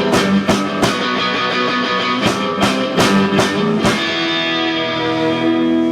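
Live punk rock on a hard-strummed guitar: repeated chord strokes, then about four seconds in a chord is left ringing, with one last stroke near the end.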